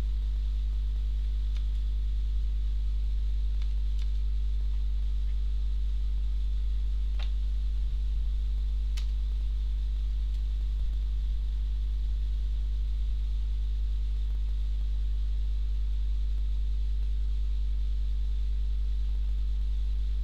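Steady low electrical mains hum with several higher overtones, unchanging throughout, and a few faint clicks scattered through the first half.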